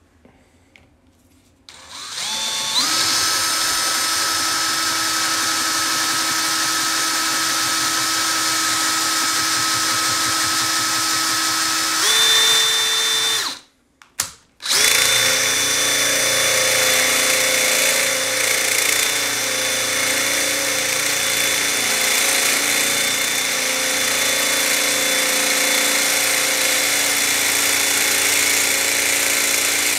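Cordless drill running a twist bit into a padlock body held in a bench vise. It spins up about two seconds in and runs steadily, stops briefly around the middle, then runs steadily again and cuts off at the end.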